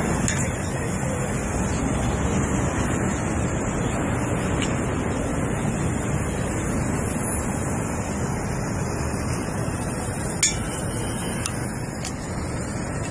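Handheld gas torch burning with a steady hiss as it heats a bronze sculpture before waxing, with one sharp click about ten seconds in.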